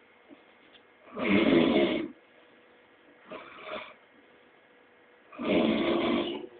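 Snoring: three snores about two seconds apart, the middle one shorter and weaker than the other two.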